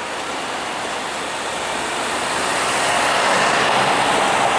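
Street traffic noise at a city intersection, swelling steadily louder as a vehicle approaches.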